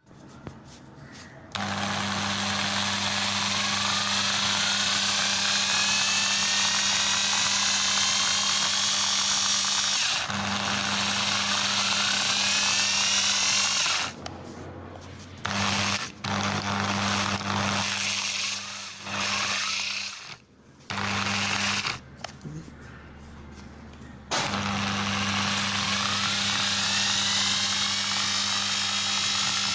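Small electric drill running with its bit grinding into chalk, a steady motor hum under a gritty hiss. It stops and restarts several times: long runs at the start and end, short bursts in the middle.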